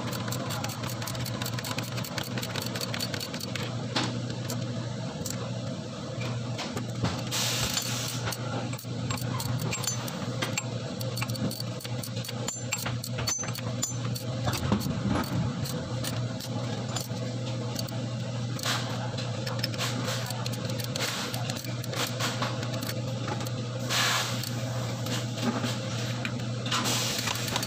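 An engine idling steadily with a fast, even clatter, and a few brief bursts of metallic rattling over it.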